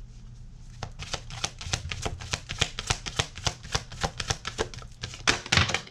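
A deck of oracle cards being shuffled by hand: a fast run of sharp card clicks, several a second, that starts about a second in and stops near the end.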